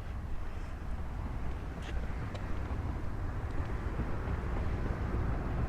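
Steady outdoor background noise: a low rumble and hiss with no distinct source, and a couple of faint clicks about two seconds in.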